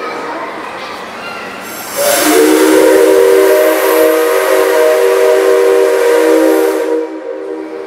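Whistle of the steam locomotive C57 135 blown on compressed air instead of steam, giving a dry sound: one long, loud blast starting about two seconds in. The pitch slides up briefly at the start, then holds steady for about five seconds before stopping abruptly.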